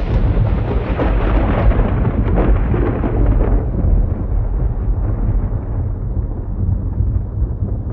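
Thunder close by: a sudden crack at the start, then a long rumble whose brighter part dies away over a few seconds while a deep low rumble keeps going.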